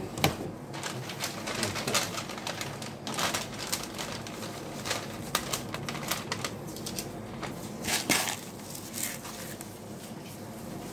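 Sushi counter work sounds: scattered light clicks and knocks of utensils and dishes over a steady background hum.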